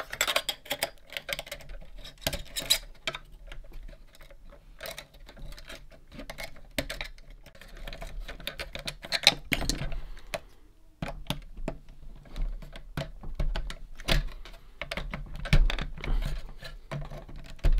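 Irregular small clicks and taps of hands working the 1971 Nintendo Ultra Scope toy periscope's metal and plastic mechanism while its spring is being wound up to put tension into it.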